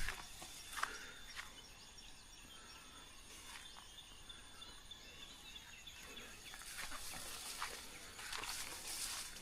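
Footsteps walking along a rural path, irregular and scuffing, with faint small birds chirping in the background. A sharp low thump comes right at the start.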